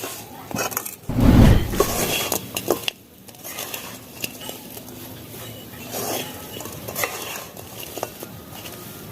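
A utensil scraping and clinking against a pan as fried goja are stirred and tossed in thick sugar syrup off the heat, the coating drying to a crumbly sugar crust. There is a heavy thump about a second in.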